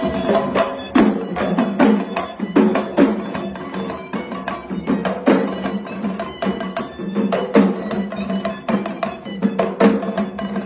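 Music: sharp percussion hits struck at an irregular pace over steady held tones.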